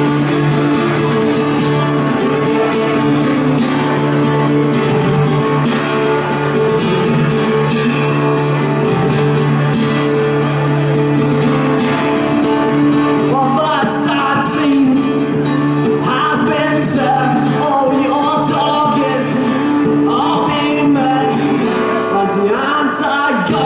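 Live performance of a rock song on guitar: a held chord rings steadily, and a singing voice comes in just after halfway.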